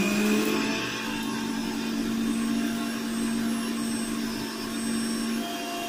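Electric mixer grinder running at full speed with a steady motor hum and whir, its small stainless-steel jar whipping coffee powder, sugar and a little warm water into a froth.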